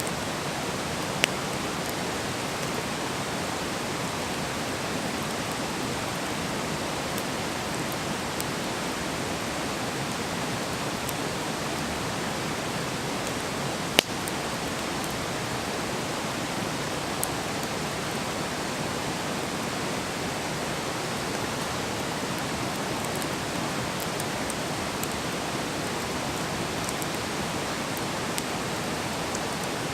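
Wood fire burning with a steady hiss, broken by a few sharp crackles as the wood pops; the loudest pop comes about halfway through.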